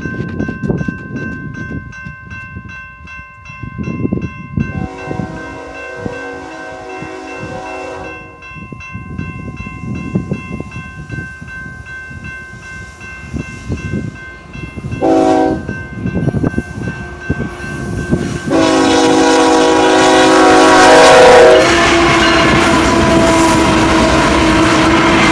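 Grade-crossing warning bell ringing steadily as an approaching BNSF freight train, led by ES44C4 locomotives, sounds its horn: a long blast about five seconds in, a short one around fifteen seconds, and a long one from about eighteen seconds. The GE diesel locomotives then pass the crossing loudly over the last few seconds.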